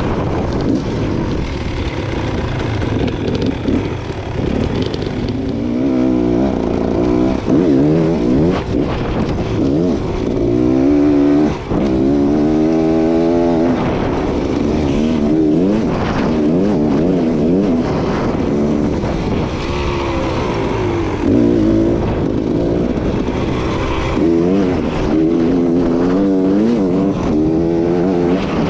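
Beta Xtrainer two-stroke dirt bike engine revving up and down again and again as it is ridden, the pitch rising and dropping with throttle and gear changes, with a long climbing rev about halfway through.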